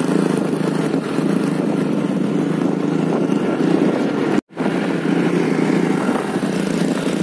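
Motorcycle being ridden, heard from on the bike: steady engine and road noise, broken by a brief total dropout a little over four seconds in.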